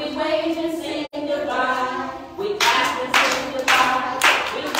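Voices singing a children's action song; a little past halfway, hands start clapping along in a steady beat, about two claps a second, while the singing goes on.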